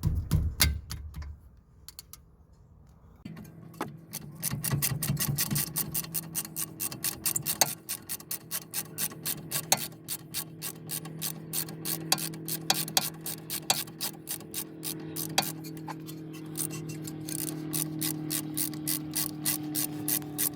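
Ratchet wrench with a T50 Torx bit clicking steadily as it backs out a BMW front brake caliper's lower guide bolt, over a steady low hum. The clicking starts about three seconds in.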